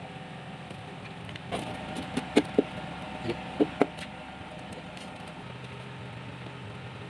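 A steady mechanical hum, like an engine running, with a handful of sharp clicks and knocks in the first half.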